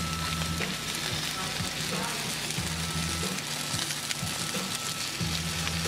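Bacon-wrapped chicken skewers sizzling on hot grill grates: a steady, even crackle of fat frying.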